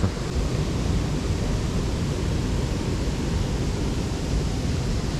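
Steady rushing noise with a fluttering low rumble, even throughout.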